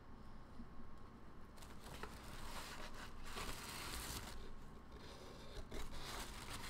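Soft rustling and crinkling handling noise that comes in irregular spells, starting about a second and a half in and loudest in the middle.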